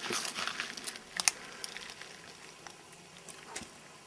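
Crackling and a few sharp clicks of a piece of baked bread being broken and handled, with two sharper clicks about a second in, then thinning to faint ticks as it is bitten into.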